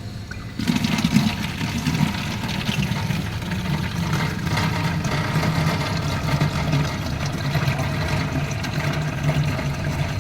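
Coin-operated water vending machine dispensing: its pump starts with a sudden onset about half a second in and runs steadily with a low hum while filtered water pours into a large bottle.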